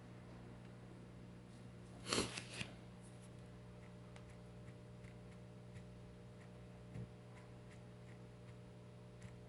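A handheld phone set down on a cloth-covered table about two seconds in: a short cluster of knocks and handling noise, the loudest thing here. Faint ticks follow every half second or so over a steady low electrical hum.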